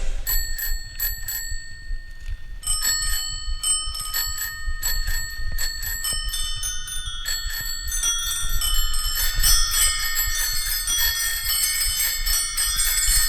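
Many bicycle bells ringing as a musical interlude. Separate rings come at first, then more and more bells overlap into a dense, jangling wash of high ringing tones.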